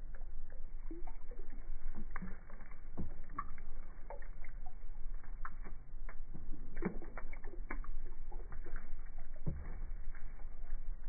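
Water sloshing and splashing in a plastic bowl as a straw-and-skewer spinning sprinkler is twirled through it, in many short irregular splashes over a steady low rumble.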